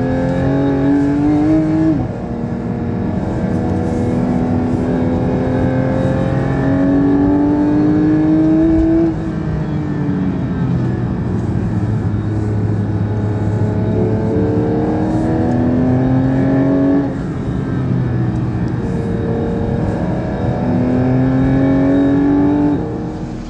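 Porsche 911 GT3 (992)'s naturally aspirated flat-six on its stock exhaust, heard from inside the cabin while accelerating. It pulls in four long runs, each climbing steadily in pitch before dropping away.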